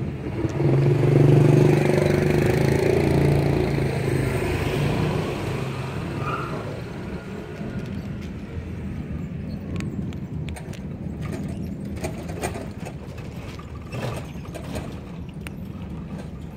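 A vehicle engine passes close by, loud at first and fading away over several seconds. Later come small sharp clicks of a cat crunching dry kibble from a paper plate.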